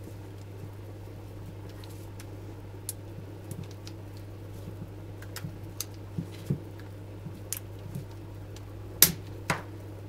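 Gloved hands handling and wrapping electrical tape around a battery's plastic connector: scattered light clicks and rustles over a steady low hum, with two louder clicks about half a second apart near the end.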